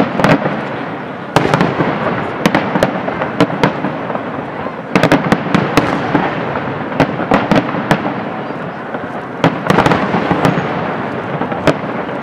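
Aerial fireworks shells bursting in quick succession: many sharp bangs over a continuous wash of crackle and echo. Heavier barrages begin about a second and a half in and again about five seconds in.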